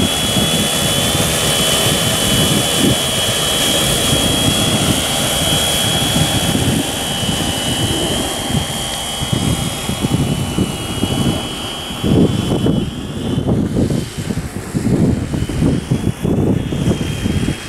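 Large multirotor crop-spraying drone flying low, its rotors giving a steady buzz with a high whine that wavers slightly in pitch. The whine fades out a little past the middle and comes back faintly near the end. Wind buffets the microphone, growing gustier in the second half.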